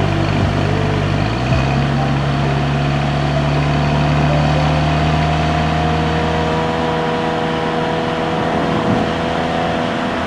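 Audi A4 B9's 2.0 TFSI turbocharged four-cylinder engine pulling the car along at a steady pace. Its note steps up slightly about a second in, then holds steady with a slow rise.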